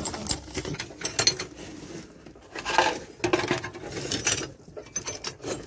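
Small metal objects and old parts clinking and clattering as they are picked up and shifted about, with irregular knocks and some rustling.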